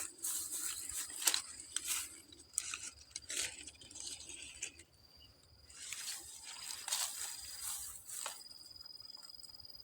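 An insect trilling steadily at a high pitch, with irregular rustling and crunching of leaves or twigs over it until about eight seconds in.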